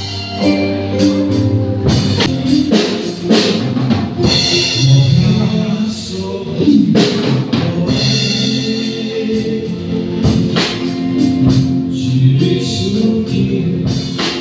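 Live amplified rock band playing: electric guitars, keyboard and drum kit, with a voice singing over the regular drum beat.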